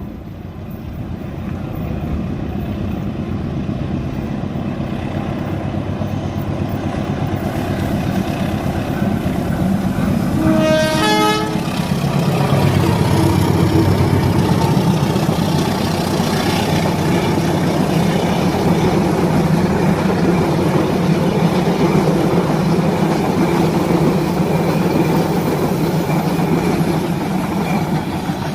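Train passing close by across a bridge: a heavy rumble builds and holds. About ten seconds in, the locomotive sounds its horn once, for about a second.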